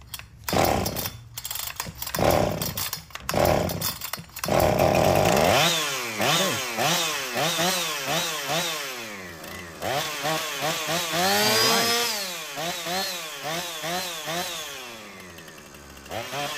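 Husqvarna 455 Rancher two-stroke chainsaw engine being test-started after a carburetor and fuel-system rebuild. A few pulls on the recoil starter come first, then the engine fires and runs. It is revved up and down repeatedly with the throttle, highest about 11 seconds in, before easing back down near the end.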